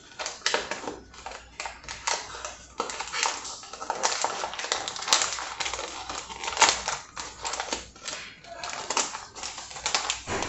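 A cardboard box of cornbread mix and its inner bag being torn open and handled: a run of irregular crackling, tearing and tapping.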